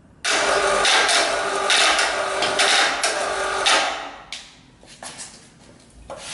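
Electric hoist running as it lifts a heavy telescope equatorial mount off a pallet: a loud mechanical whirring with steady tones that starts suddenly and runs for about four seconds, then stops, followed by a few light knocks.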